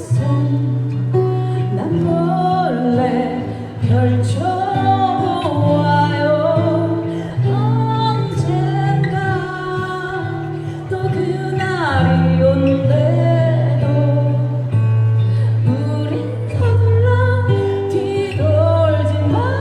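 A pop ballad played live: a woman singing a slow melody over a backing track with acoustic guitar and a steady bass line.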